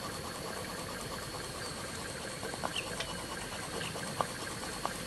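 Stuart Turner S50 model steam engine running smoothly on live steam and very quietly, with hardly any noise from the engine itself: a faint steady hiss with a few light clicks about half-way through and later.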